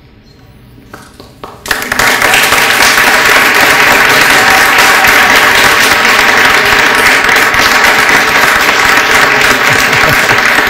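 Audience applauding loudly, breaking out suddenly about two seconds in after a quiet moment and keeping up steadily.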